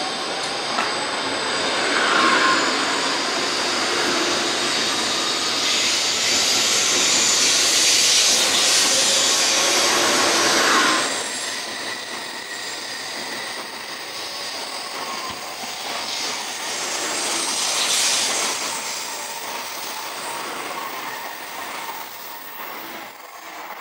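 N700S Shinkansen train pulling out of the station and picking up speed past the platform: a steady rush of wheels and air with a faint rising electric whine. Louder through the first half, it drops off after about eleven seconds as the train draws away, with one more brief swell later.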